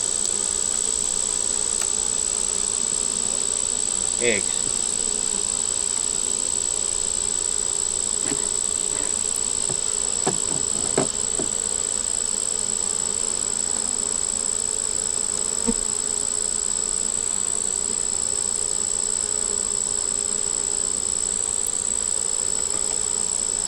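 Honey bees buzzing steadily in a dense swarm around an opened hive; the colony has turned defensive during the inspection. A couple of light knocks come about ten seconds in.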